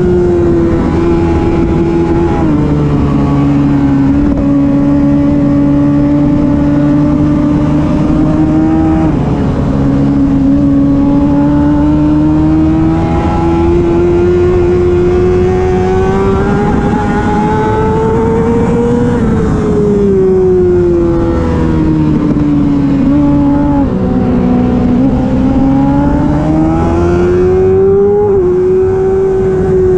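Racing sport bike engine held at high revs, its pitch rising and falling with the throttle and dropping suddenly a few times as it changes gear.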